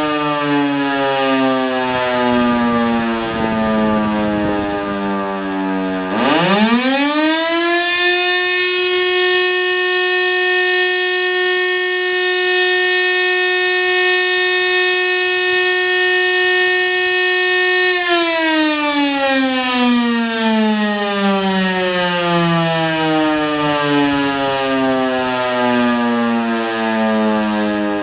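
Old Siemens FM SI 41 electric fire siren sounding the fire alarm signal. A falling tone winds down at first; about six seconds in the siren spins up quickly to a steady tone and holds it for about ten seconds. It then winds down in a long, slowly falling tone once the motor is cut, one blast of the German 'Feueralarm' pattern of repeated rising, held and falling tones.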